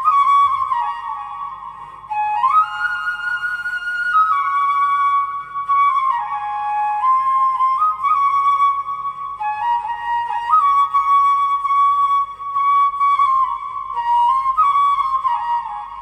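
Background music: a solo flute playing a slow melody of held notes moving up and down in steps.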